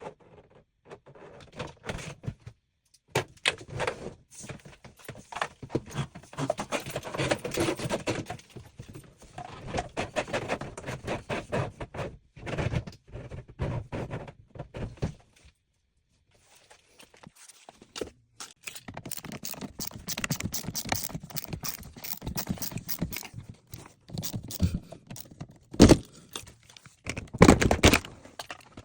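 Irregular knocks, thunks and rattling from hand work on a dishwasher installation. The clatter pauses briefly about halfway through, and two sharper knocks come near the end.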